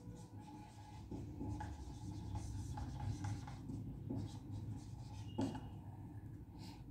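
Whiteboard marker writing a long word on a whiteboard: a run of short, faint scratching strokes.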